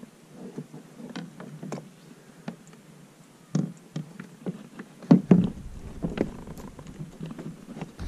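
Hollow knocks and taps of a plastic kayak and its paddle as the paddle is laid down, the hull nudges into a muddy bank and the paddler climbs out. The two loudest knocks come close together about five seconds in.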